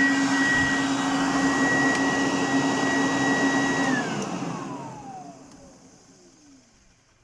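Goblin Laser 2200X upright vacuum cleaner running with a steady high motor whine, then switched off about four seconds in, its whine falling in pitch as the motor spins down to a stop.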